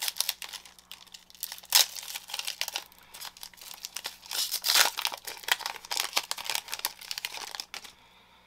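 Plastic trading card pack wrapper crinkling and being torn open, a dense run of crackles with the sharpest ones about two seconds in and near the middle, stopping shortly before the end.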